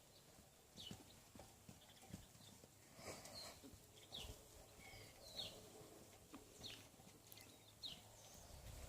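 Faint, uneven thuds of a horse's hooves as it moves, with a short, high, falling chirp repeating about once a second.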